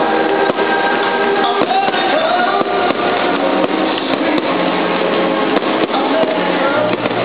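Music playing, with aerial firework shells bursting as irregular sharp bangs.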